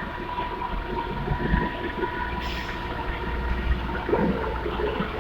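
Steady rumble of heavy industrial machinery with a faint steady whine and scattered knocks.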